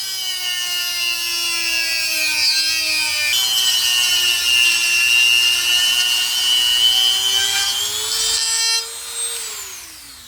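Dremel rotary tool running at high speed, its whine sagging and recovering in pitch as it is loaded against a seized exhaust oxygen sensor to cut it out. Near the end it is switched off and winds down with a falling pitch.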